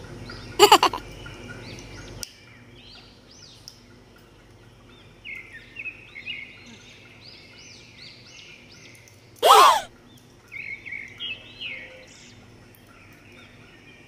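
African grey parrot calling: a short loud call near the start and a loud call falling in pitch about halfway through, with many soft chirps in between.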